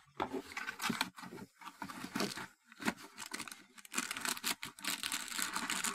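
A small cardboard box being opened by hand: irregular scraping and tearing of cardboard with crinkling of plastic wrapping, becoming more continuous in the last two seconds.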